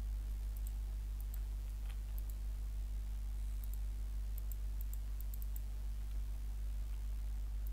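Faint computer mouse clicks, about a dozen, mostly in quick pairs, heard over a steady low electrical hum.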